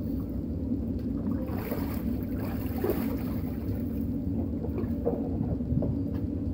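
Water splashing and sloshing in an inflatable paddling pool as a child moves about and climbs out, mostly in the first half, over a steady low rumble.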